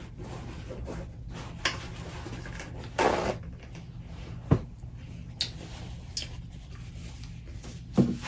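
Paper towel sheet rustling and crinkling as it is unfolded and handled, in short separate bursts with a few sharp clicks, the longest rustle about three seconds in, over a steady low hum.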